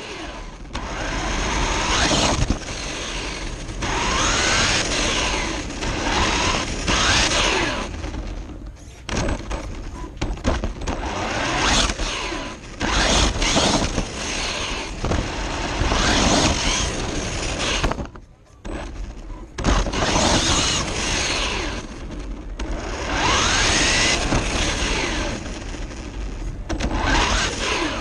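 Onboard sound of a 1/16 Traxxas Mini E-Revo RC truck driven hard over concrete. Its electric motor whines up in pitch again and again as it accelerates, over a steady noise of tyres and wind. It eases off briefly twice, about a third and two thirds of the way through.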